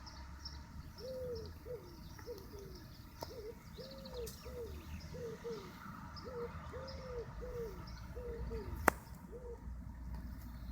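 A dove or pigeon cooing, a run of low hooting notes in short phrases, over fainter small-bird chirps and a steady low rumble. A single sharp click about nine seconds in.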